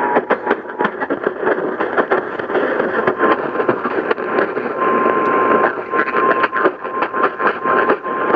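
Radio receiver static: a steady hiss full of rapid crackles. A faint steady whistle tone comes in about three seconds in and grows a little stronger about five seconds in.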